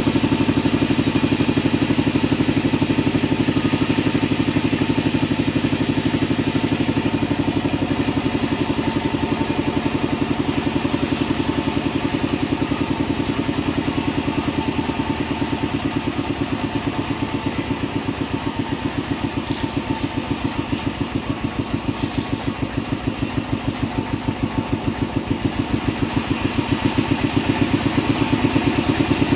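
Band sawmill machinery running steadily with a rapid, even engine-like thumping; it eases a little in the middle and picks up again near the end.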